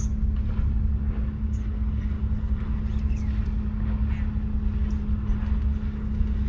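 A boat's engine running steadily: a constant low drone with a steady hum.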